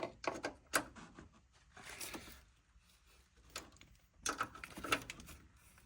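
Hand tools tightening the loose fittings on a Land Rover Defender fuel filter housing: irregular metal clicks and short scrapes, with a quick run of clicks at the start and a denser spell of scraping and clicking near the end.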